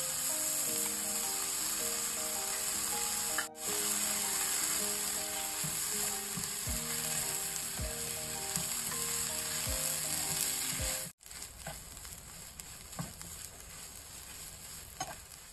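Bean sprouts, red pepper and egg sizzling in a hot frying pan as they are stirred, a steady frying hiss that goes quieter after a short break about eleven seconds in.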